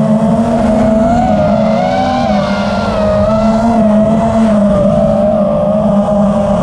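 Electric motor and propeller of the small radio-controlled aircraft carrying the camera, a steady loud whine whose pitch wavers slightly up and down.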